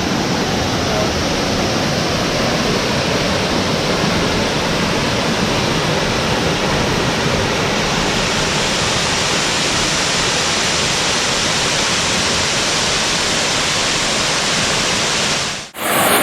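Waterfall rushing, a steady, loud, even roar of falling water that drops out suddenly for a moment near the end.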